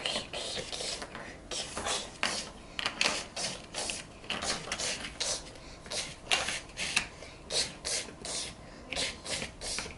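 Plastic toy construction pieces being handled: a quick, irregular run of short scrapes and rustles, about two or three a second.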